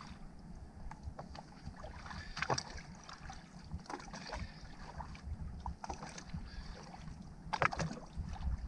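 Seawater lapping and splashing at a boat's side as a hand holds a snook in the water, with a low steady rumble underneath. Scattered small splashes come through, the strongest near the end.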